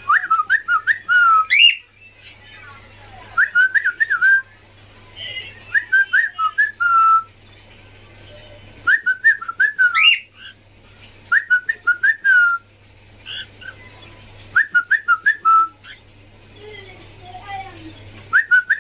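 Cockatiel whistling the same short tune over and over, a quick run of up-and-down notes ending on a held lower note, repeated about every two to three seconds.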